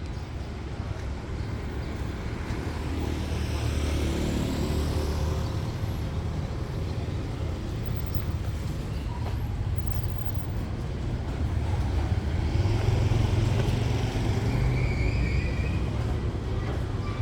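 Steady low engine rumble that swells twice and eases off, with a wash of broader noise over it.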